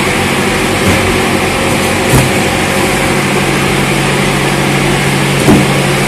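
A machine running steadily with a constant low hum, loud in the enclosed space, with a few dull knocks of cardboard cartons being shifted about one, two and five and a half seconds in.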